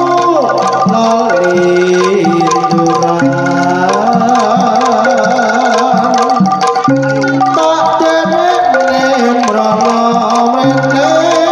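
Jaranan gamelan music played live and amplified through a large sound system. Kendang hand drums keep a quick rhythm under gong and metallophone tones, with a wavering, sliding melody line on top.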